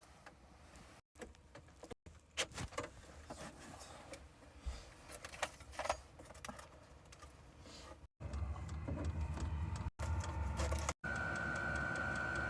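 Diesel heater being primed and started: scattered light clicks and handling noise, then after about eight seconds a steady low hum of the heater's motor running, with a steady high whine joining near the end.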